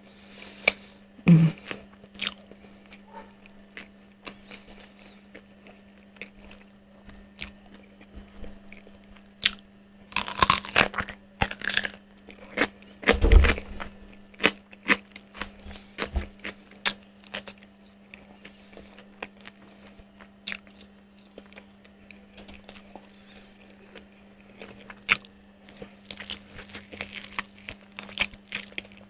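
Close-up chewing and crunching of crispy-coated fried chicken: many short crunches and wet mouth sounds, with louder bites about ten to fourteen seconds in and again near the end. A steady low hum lies underneath.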